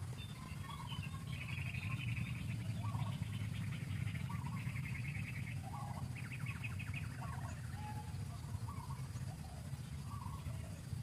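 Birds chirping outdoors: short calls about once a second, with three bursts of rapid buzzy trills, over a steady low rumble.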